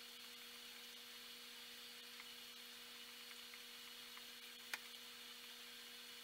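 Near silence: a faint, steady electrical hum with light hiss from running aquarium equipment, with a few very faint ticks and one sharp click about three-quarters of the way through.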